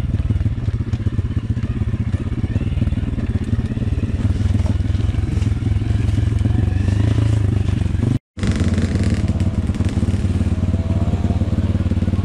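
Dirt bike engine running steadily at a low trail pace, heard from on board the bike. The sound drops out for a split second about eight seconds in, then the engine carries on.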